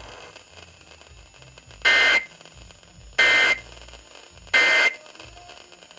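Emergency Alert System end-of-message data tones played over a radio: three short, identical bursts of buzzing digital tone, about a second and a half apart, marking the end of the alert.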